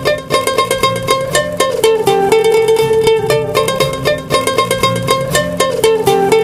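Background instrumental music played on a plucked string instrument, a quick run of bright plucked notes over a steady melody.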